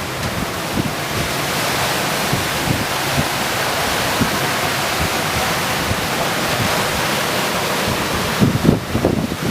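Water rushing along a Maverick 400 sailing catamaran's hulls under way, with wind buffeting the microphone. The buffeting comes in a stronger burst of gusts near the end.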